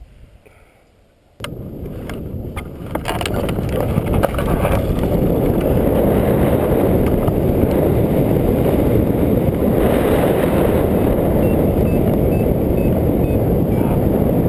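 Wind rushing over the microphone of a camera on a hang glider, starting suddenly with a few sharp clicks and building over the first seconds into a steady, loud rush.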